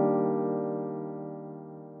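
Background music: a sustained keyboard chord ringing on and fading away steadily.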